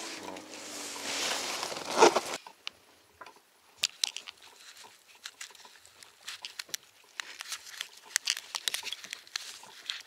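Close-up handling noises: a hiss and a sharp knock about two seconds in, then after an abrupt cut a run of small irregular clicks, rustles and crinkles.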